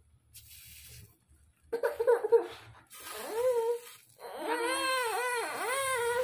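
A high, whining voice that rises and falls in pitch: a couple of short cries about two seconds in, then a longer wavering one near the end.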